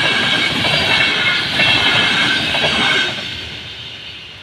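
Passenger train coaches passing at speed, the wheels rumbling on the rails under a steady high-pitched ringing. The sound falls away from about three seconds in as the end of the train goes by.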